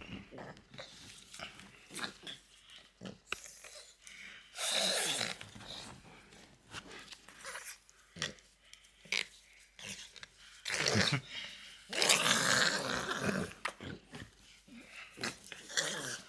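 French bulldog making pig-like snorts and wheezy breathing noises in irregular bursts, with a longer burst about five seconds in and the loudest stretch about eleven to fourteen seconds in.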